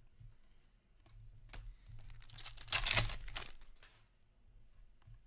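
Trading cards being handled: a few soft clicks, then a rustling, crinkling burst from about two to three and a half seconds in as cards and wrapper are slid and shuffled in the hands.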